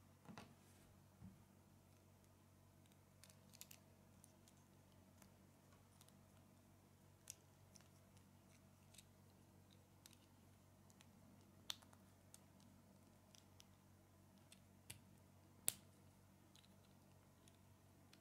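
Small plastic Lego pieces clicking together as they are handled and pressed onto each other: scattered light clicks, with a few sharper snaps and the loudest one toward the end.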